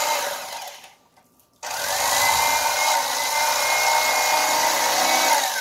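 Electric fillet knife cutting a sail catfish fillet, its motor running with a steady whine. It winds down and stops about a second in, then starts again and keeps running.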